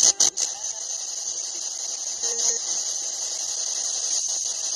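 Spirit box radio scanning through stations, giving a steady high-pitched static hiss, with a few loud crackles right at the start.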